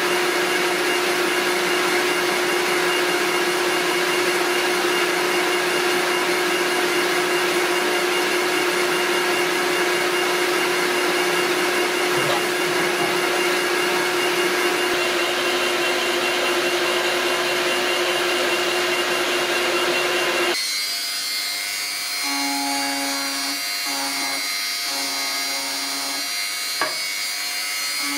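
Laboratory precision cut-off machine running steadily, its cutting wheel spinning at 4000 rpm with a slow feed, giving a constant hum over a whirring hiss. About twenty seconds in it cuts off sharply, and an electric engraving pen buzzes in short stop-start spurts as it scratches lettering into a resin-mounted sample.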